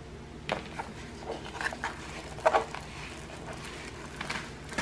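A rolled diamond-painting canvas in clear plastic wrap being handled and unrolled, making a few scattered soft crinkles and rustles.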